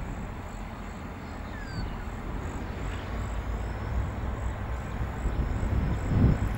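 Distant diesel locomotive approaching, its engine a low rumble growing slowly louder, with wind buffeting the microphone near the end.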